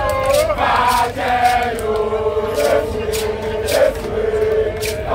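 Voices chanting in long held notes, with sharp strokes scattered through.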